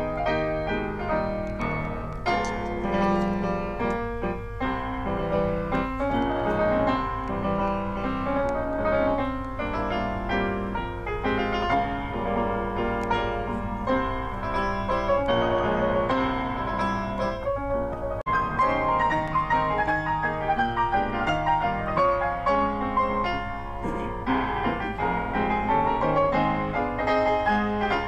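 Solo grand piano playing a classical piece live, with a steady low hum underneath.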